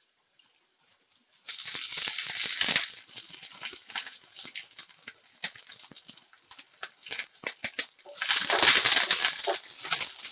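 Fresh curry leaves spluttering in hot oil in a kadai with browned shallots and dried red chillies: a loud burst of sizzling about a second and a half in, then scattered crackles and pops, and a second loud sizzling burst near the end.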